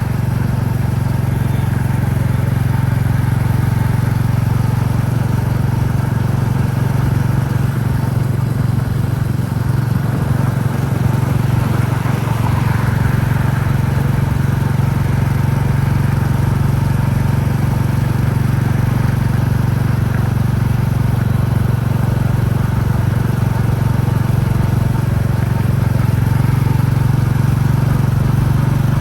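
Royal Enfield Classic 350's single-cylinder engine running steadily under way, its low exhaust thump carried over a haze of road and wind noise.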